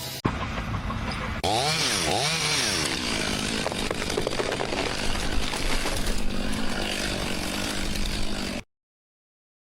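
A small engine revving, its pitch swooping down and up twice, then running at a steady pitch before cutting off abruptly into silence near the end.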